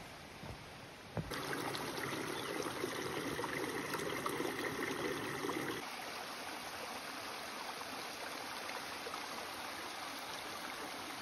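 A few footsteps on the trail, then a small forest creek running and trickling among rocks and fallen branches. The water sound is fuller in the first half and steadier after about six seconds.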